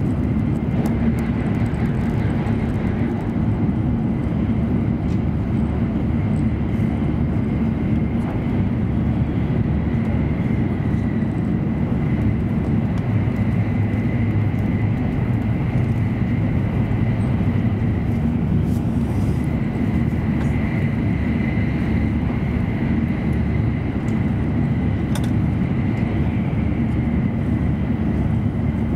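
Steady rumble and rush of an E7 series Shinkansen heard inside the passenger cabin as it runs at speed, with a faint high whine held over it.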